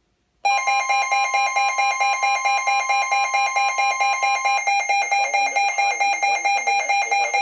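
Weather radio alert alarm: loud, rapid electronic beeping at about seven beeps a second, starting suddenly, with a steady warning tone beneath it that stops about four seconds in. A broadcast voice starts faintly under the beeping near the end. The alarm signals an incoming weather warning broadcast.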